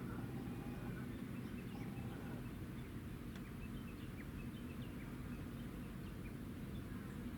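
Steady low drone of the helicopter destroyer Kaga's engines, a deep hum with several held tones. Small birds chirp faintly over it.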